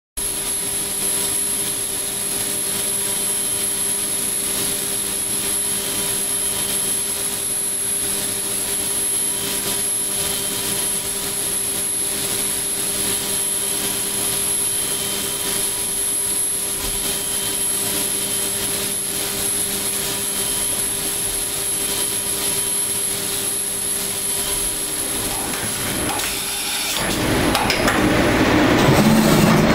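Leadwell V-20iT CNC vertical machining centre milling a brass part with a small end mill: the spindle runs at high speed with a steady high-pitched whine and several lower hums over a hiss. About 27 s in a louder, rougher rushing noise takes over as the steady whine fades.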